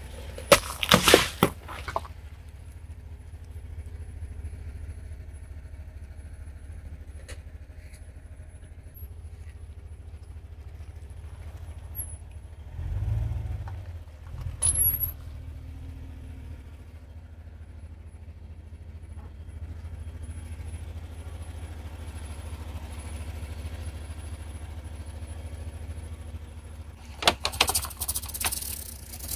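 A car tyre crushes a watermelon packed with M&M's candies, with a loud burst of cracking and crunching about a second in, over the steady low rumble of the car's engine. A dull thump comes midway. Near the end there is a second loud burst as the tyre presses down on a plastic bottle of liquid and a bunch of water balloons.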